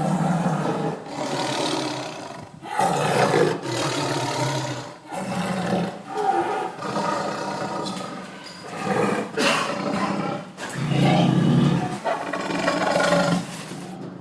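Tiger roaring again and again, each roar lasting a second or two, with short breaks between.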